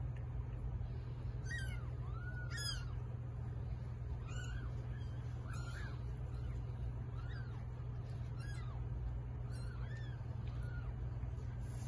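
Newborn kitten mewing: thin, high-pitched squeaky cries, about eight of them roughly a second and a half apart, each rising and falling in pitch, over a steady low hum.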